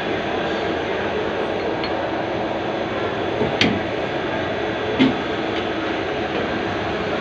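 CNC turning lathe running with a steady whirring hum, with two short sharp clicks, about three and a half and five seconds in.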